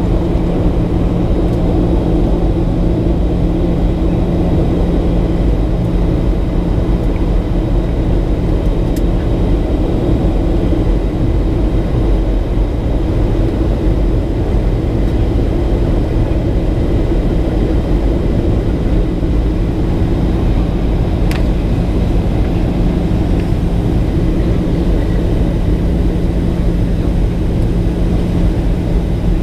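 Steady in-cabin noise of a Boeing 737-800 descending: the rumble of airflow and its CFM56-7B turbofan engines, with a low hum that weakens for several seconds midway and comes back. A brief click about 21 seconds in.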